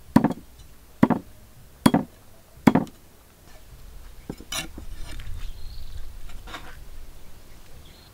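Meat cleaver chopping raw duck on a thick wooden chopping block: four hard chops, a little under a second apart, in the first three seconds. After that, softer scraping and light knocks as the chopped pieces are gathered up off the board.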